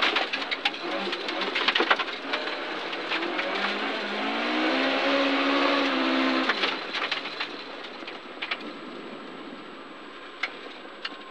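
In-cabin sound of a Ford Escort RS1800 rally car running on a wet gravel road, with stones clicking against the car. A steady drone rises and holds for about three seconds in the middle. The sound then grows quieter as the car eases off after the stage finish.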